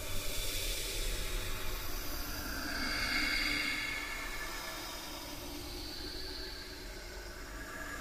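Train running by with a steady rumble and hiss, swelling about three seconds in and then easing off.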